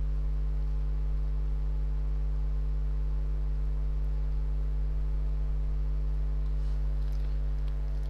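Steady low electrical hum with several higher overtones, unchanging.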